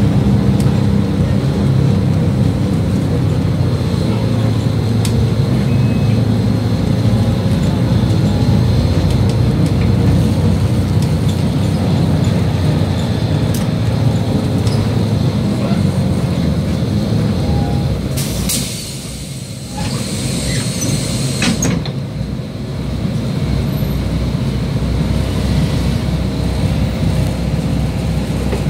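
City bus running along the road, heard from inside: a steady low engine and road rumble. About two-thirds of the way in comes a hiss lasting about three seconds.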